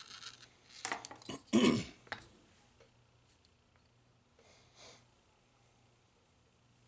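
A few light clicks of small parts being handled, then a short throat-clear just under two seconds in, followed by quiet with a faint steady low hum.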